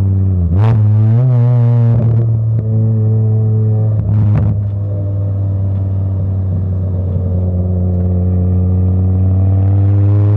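Volkswagen MK5 Jetta's 2.5-litre inline five-cylinder engine running under way, with a gear change about half a second in and another about four seconds in. It then holds a steady pitch and starts climbing again near the end.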